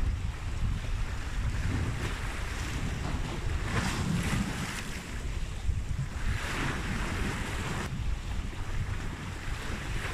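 Wind buffeting the microphone over the wash of sea waves, with two louder surges of hiss about four and six and a half seconds in.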